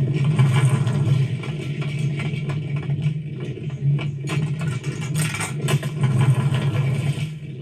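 Car engine idling steadily, with scattered light knocks and scrapes over it.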